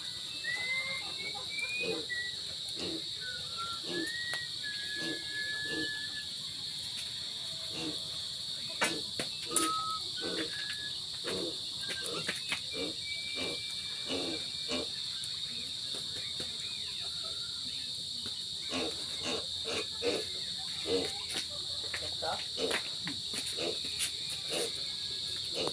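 Steady high-pitched drone of crickets or other insects, with a bird whistling a few short rising notes in the first seconds and one held note about halfway through. Many short, soft knocks and crackles run through it.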